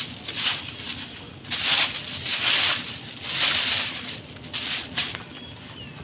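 Thin plastic bag of collected litter crinkling and rustling in repeated bursts, about one a second, as a hand handles it.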